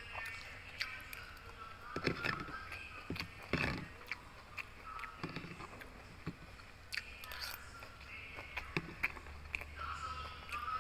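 A metal spoon scraping and tapping against a plastic food container as rice is scooped up, with irregular clicks and scrapes, and mouth sounds of chewing.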